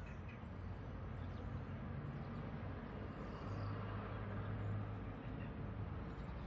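Faint steady low hum over a soft hiss, with no music.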